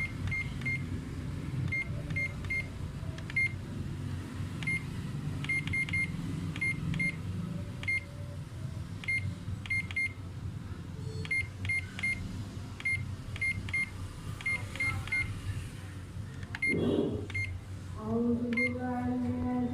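Key beeps from the Ricoh MP 201 copier-printer's control panel as its buttons are pressed to step through the network settings menu: many short, same-pitched beeps at irregular intervals, some in quick twos and threes, over a low steady hum.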